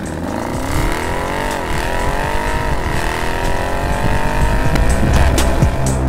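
Audi RS7's twin-turbo V8 under hard acceleration, heard from the cabin. Its pitch climbs steadily, drops sharply at two quick upshifts in the first three seconds, then climbs again.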